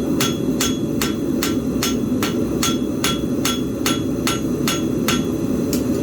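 Steady, even hammer blows on metal at an anvil, about two and a half a second, each strike ringing with a bright metallic tone. A steady low rushing noise runs underneath.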